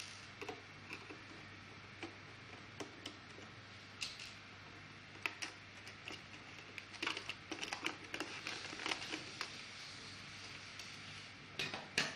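Small clicks and taps of plastic and metal parts being handled while an LED projector is taken apart, with a busy run of rattling clicks in the middle and a sharp click near the end, over a faint steady hum.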